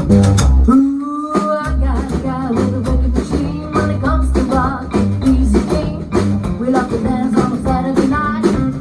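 Rockabilly band music: a lead line with bending pitches over a steady, pulsing low bass beat, without sung lyrics.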